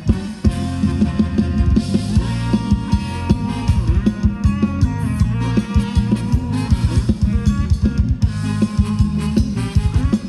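Thai ramwong dance music from a live band, with a drum kit keeping a steady beat of bass drum and snare under melody instruments.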